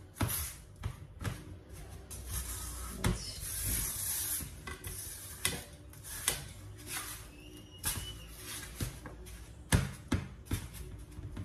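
Fingers pressing and rubbing buttery biscuit crumbs into a glass tart dish to form a crumb base: soft scraping and crunching with irregular taps against the dish, one sharper tap near the end.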